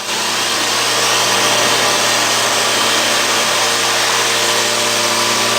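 Holytek NR-1010-2 CNC woodworking centre running: a steady, even machine hiss with a constant low hum underneath, unchanging throughout.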